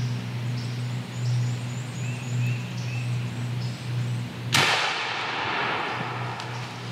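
A single shotgun blast about four and a half seconds in, a turkey hunter's shot at a gobbler, sharp and followed by a trailing echo through the woods. Before it, small birds chirp over a steady low hum.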